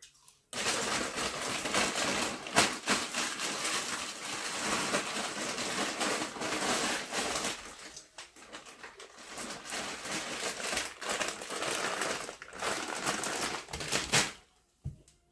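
A crinkly snack bag crackling and rustling close to the microphone, full of sharp clicks. It eases briefly about eight seconds in and stops near the end.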